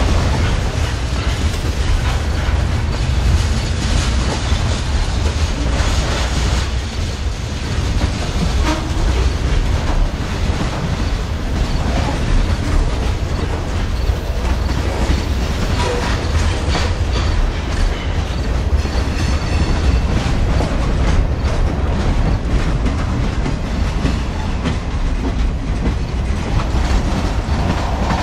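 Freight train cars rolling past close by: a loud, steady low rumble with the clicking and clacking of steel wheels on the rails.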